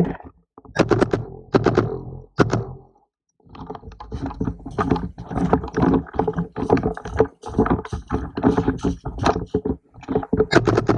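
Dense, irregular knocking and rattling with two short pauses, like handling and movement noise on a gun-mounted camera.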